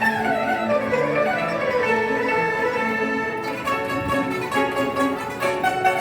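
Chinese traditional orchestra playing, with the bowed huqin (erhu) section leading a melody that slides downward in pitch over the first couple of seconds. After about three and a half seconds the playing turns busier, with crisp plucked-string notes coming in.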